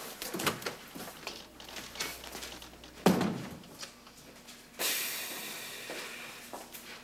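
Footsteps followed by a door slamming shut about three seconds in. Then a high hiss that fades out.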